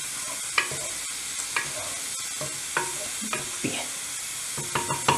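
Wooden spoon stirring thick tomato sauce in a terracotta cazuela, knocking and scraping against the clay pot about once a second, with a quicker run of knocks near the end, over a steady sizzling hiss.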